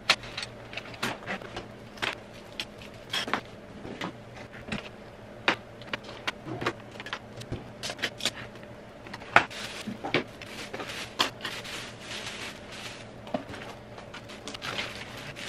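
Objects on a cluttered desk being picked up, moved and set down while it is tidied: irregular clicks, knocks and rustles, one every second or so, over a faint steady low hum.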